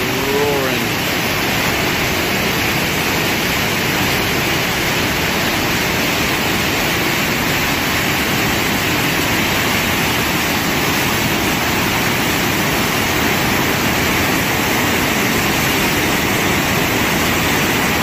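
A large river waterfall on the Snake River, heavy white water pouring over a basalt ledge, making a steady, even rushing noise throughout.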